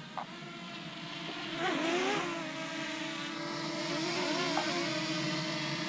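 DJI Mini 2 drone's propellers whining as it hovers and comes in to land, the pitch wavering up and down as the motors adjust, louder about two seconds in. A short click just after the start.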